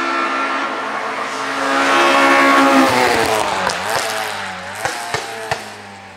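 A small hillclimb race car's engine running hard at high revs as it comes up and passes, its pitch dropping as it goes by. Three sharp pops follow near the end as the engine sound fades.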